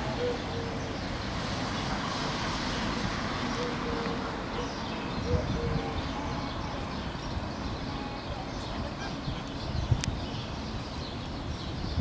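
Steady outdoor background noise, with a few short, low, level coos from doves in the first half and a single sharp click near the end.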